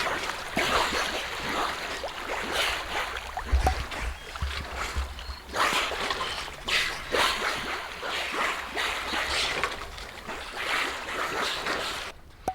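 Water rushing and splashing along the hull of a moving sailboat, coming in uneven surges, with wind buffeting the microphone.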